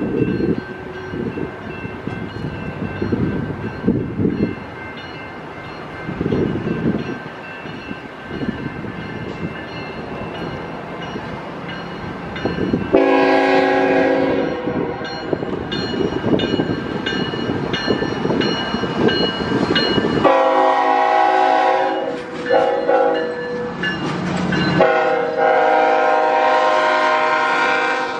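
CSX freight train approaching with engine rumble and wind on the microphone. About 13 s in, the locomotive's multi-chime air horn starts blowing: one long blast, then further blasts with short breaks, lasting to the end as the locomotive and coil cars roll past.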